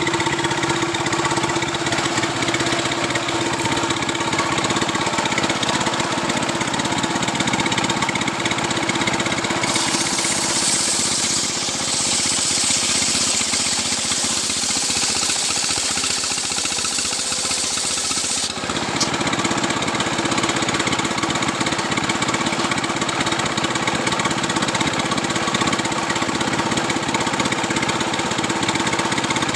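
Stihl chainsaw running steadily at high throttle, sawing lengthwise through a coconut-palm trunk. About ten seconds in, a bright hiss joins the engine for some eight seconds and cuts off sharply.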